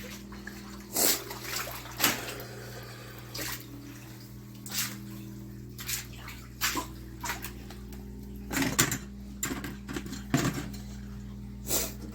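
Water splashing and sloshing in irregular bursts, with a steady electrical hum underneath.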